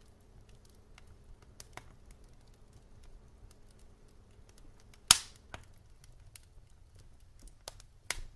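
Wood fire crackling in a fireplace: scattered sharp pops over a faint steady low rumble, with the loudest pop about five seconds in.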